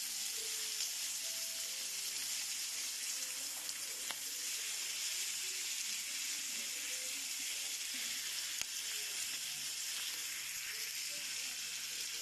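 Pork belly strips sizzling on a hot electric griddle, a steady hiss of fat frying. A couple of faint clicks come through, about four and eight and a half seconds in.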